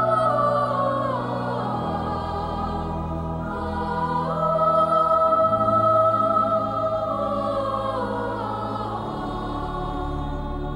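Background music: a choir singing slow, long-held notes that move gradually from chord to chord.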